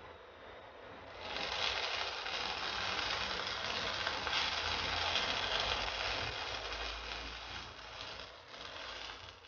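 Dosa sizzling in ghee on a pan over low heat: a steady hiss that swells about a second in and fades near the end.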